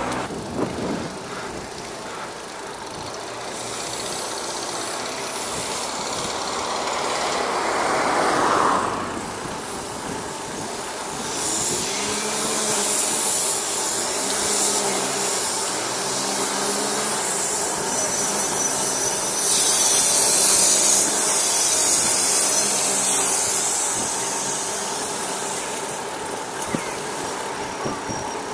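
Road traffic: motor vehicles passing, one swelling up and dropping away about nine seconds in, then a steady engine drone that wavers in pitch.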